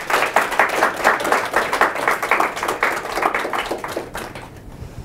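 Audience applauding at the end of a talk, dense clapping that thins out and dies away near the end.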